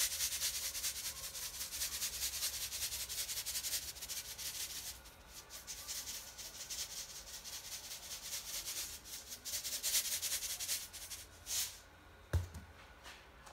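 Salt shaken from a plastic shaker canister over a tray of chicken: a fast rattling hiss of grains, steady for the first five seconds and then in shorter shakes. A single thump comes near the end.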